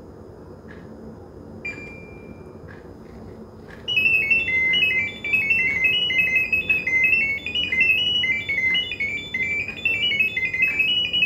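LG dual inverter split air conditioner sending its Smart Diagnosis data as sound. There is a single short beep about two seconds in. From about four seconds a fast, continuous run of high beeping tones hops back and forth among a few pitches, which the phone app listens to in order to read the unit's status.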